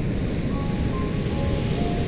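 Steady rush of ocean surf, heaviest in the low end, with a soft melody of short single notes over it.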